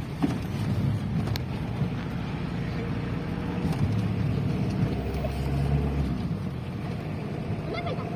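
Car cabin noise while driving: a steady low engine and road drone, swelling a little about two-thirds of the way through.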